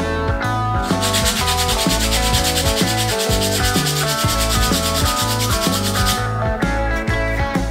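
Fast, even strokes of hand sanding on a small wooden part, starting about a second in and stopping about six seconds in, over background guitar music.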